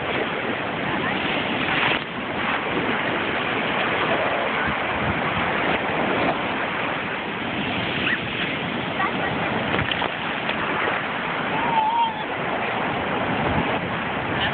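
Ocean surf breaking and washing up over the sand at the shoreline, a steady rush of water.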